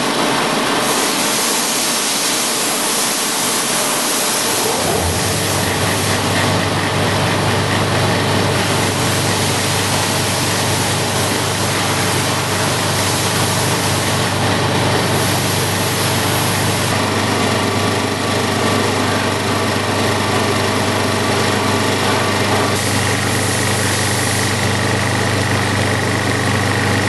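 Walther Trowal vibratory finishing machine running: a steady, noisy hiss, joined about five seconds in by a low, even motor hum that starts suddenly and then holds steady.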